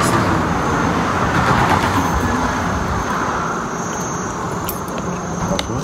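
A vehicle passing on a nearby road: a broad rush that swells over the first two seconds and fades after about three. Under it runs a steady high insect whine, with a few light clinks of a spoon and fork on a plate.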